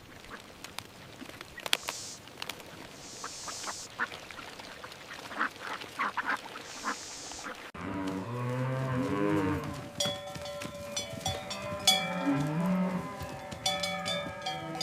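Scattered faint clicks, then, about halfway through, cattle start mooing in low, gliding calls while bells ring with many repeated metallic strokes, typical of alpine cowbells on grazing cows.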